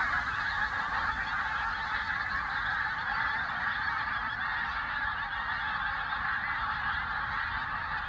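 A huge flock of pink-footed geese calling together as it takes flight after being flushed from a field: a dense, unbroken chorus of high-pitched contact calls from hundreds to thousands of birds.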